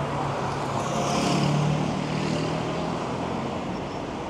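A motor vehicle passing close by: a steady low engine drone that swells to its loudest about a second and a half in and fades out after about three seconds, over constant street noise.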